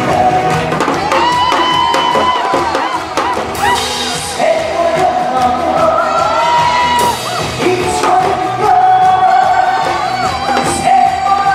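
A male trot singer singing live into a microphone over backing music, holding long notes with vibrato.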